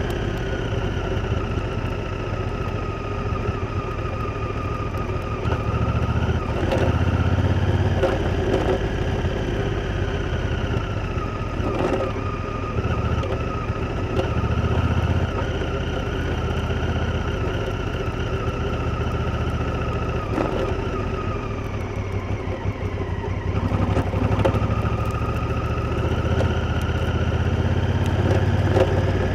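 Honda Africa Twin's parallel-twin engine running steadily under way, its revs easing off and picking up again several times, with a few short knocks from the bike along the way.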